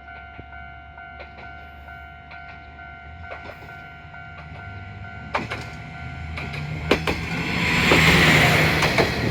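Level crossing warning bell ringing in a steady repeating pattern. From about five seconds in, a Tenryū Hamanako Railway diesel railcar comes through the crossing, its engine rumbling and its wheels clacking over the rail joints, loudest near the end.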